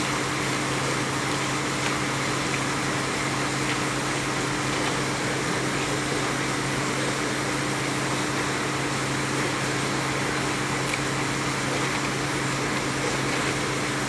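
A steady low hum under an even hiss, with a few faint clicks.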